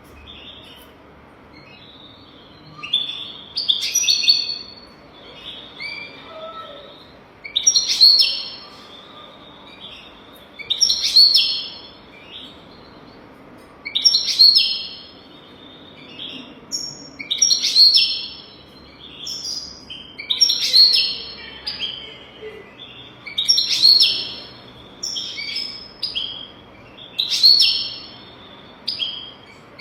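European goldfinch singing: short, high, twittering song phrases, repeated about every three seconds, starting a few seconds in.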